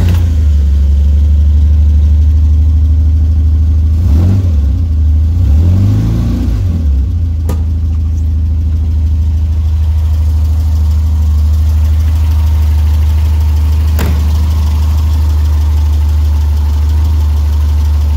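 1966 Morgan +4's four-cylinder engine running just after a cold start, revved up and down a few times about four to seven seconds in, then settling into a steady idle. Two sharp clicks are heard over it.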